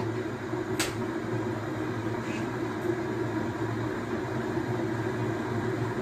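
Steady low hum of a running kitchen appliance, with a single sharp click about a second in.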